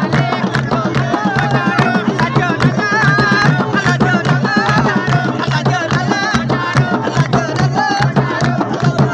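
Mugarman drums (big Sheedi barrel drums) beaten hard with hands and sticks in a fast, dense rhythm, with voices singing along over the drumming.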